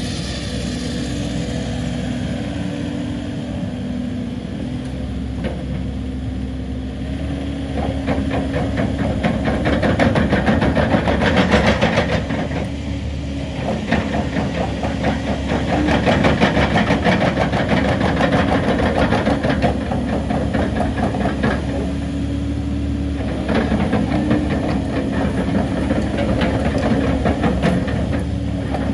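Caterpillar 308 E2 CR mini excavator's diesel engine running steadily, with three louder stretches as it works under hydraulic load and moves, carrying a dense rapid clatter.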